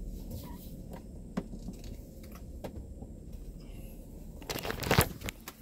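Phone handling noise: a few light clicks and rubbing against the microphone, then a loud rustling crunch near the end as the phone is moved, over a low steady rumble in the car cabin.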